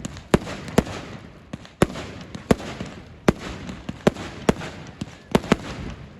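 Fireworks going off: a string of sharp bangs at uneven intervals, roughly one every half second to a second, over a continuous crackling haze.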